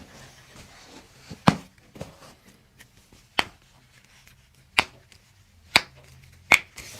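Joints cracking under chiropractic manipulation: six sharp pops spaced out over about five seconds, the loudest about a second and a half in and near the end.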